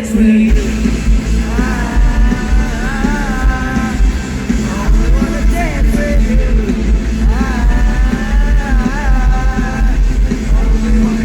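Indie pop-rock band playing live in an arena, recorded from the audience: loud, bass-heavy band sound with long held sung notes, twice.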